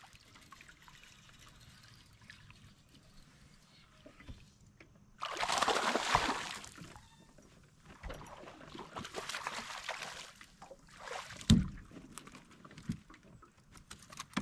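A hooked bass splashing and thrashing at the water's surface beside the boat: one loud burst lasting about two seconds, then two shorter bursts, followed by a single dull thump.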